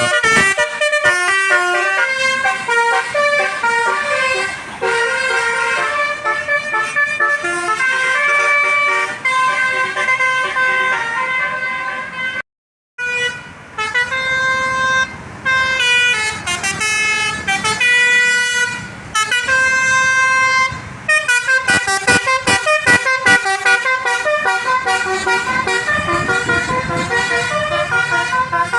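Telolet multi-tone musical horns on tour buses playing loud tune phrases, a run of held notes stepping from pitch to pitch and repeated again and again. There is a brief silence just under halfway through.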